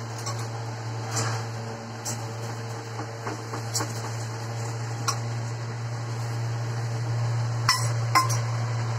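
Steel spoon clinking against a small steel bowl and scraping on an iron tawa as oil is spread over a paratha, with two sharper clinks near the end. A steady low hum runs underneath.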